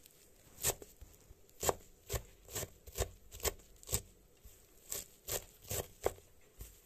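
Large kitchen knife chopping a pile of fresh green herbs, the blade knocking down through them about two times a second in an uneven rhythm.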